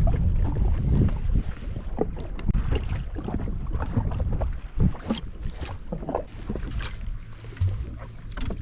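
Wind buffeting the microphone and water slapping against a jet ski's hull, with scattered short knocks and splashes.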